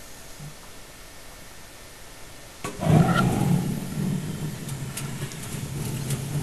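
Gas water heater's main burner lighting about two and a half seconds in with a sudden whoosh, then burning with a steady low rush.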